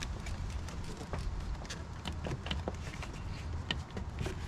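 Scattered light clicks and taps of metal parts being handled and fitted while refitting brake lines to a master cylinder, over a steady low rumble.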